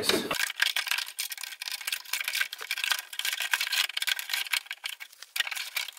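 Irregular clicking, tapping and scraping of a power window regulator and its motor being worked by hand into the bolt slots of a car door's inner sheet-metal frame.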